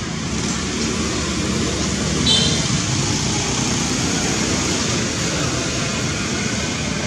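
Steady rushing outdoor background noise with a low rumble, and one short high-pitched chirp a little over two seconds in.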